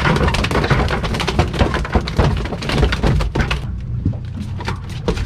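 Rapid, irregular knocks and thuds on a fishing boat over a steady low rumble, easing off briefly near the end.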